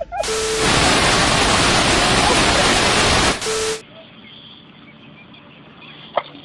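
TV-static hiss used as a video transition effect: a loud burst of even white noise about three and a half seconds long, with a brief steady tone at its start and end. It cuts off suddenly to a faint background with one small click near the end.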